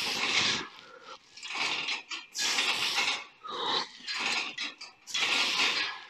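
A man breathing hard and forcefully with strained, grunting breaths, about one a second, while working through repetitions of straight-arm cable pulldowns.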